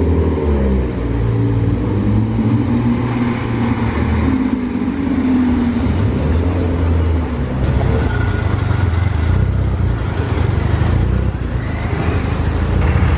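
Car engines and exhausts running at close range, a steady low drone with the engine pitch rising and falling in the first few seconds as a car revs and drives off.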